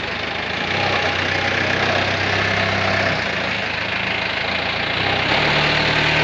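Concrete mixer's engine running steadily, its low hum shifting in pitch a few times.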